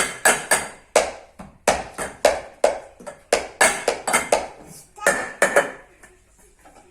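Hard objects being tapped and struck, quick uneven knocks about two or three a second, each with a short ring; the strikes thin out and fade near the end.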